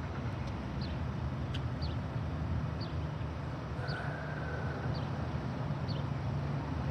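Steady low mechanical hum of outdoor traffic-type noise, with a small bird giving short high chirps about once a second.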